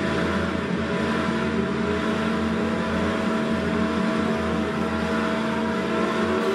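A steady, dense droning wash from the dance piece's sound score: a rushing noise under several held tones, with no beat and no break. A faint tone glides near the end.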